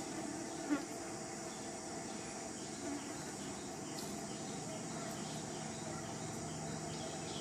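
Steady outdoor drone of insects buzzing and chirring, with one short, sharp squeak under a second in.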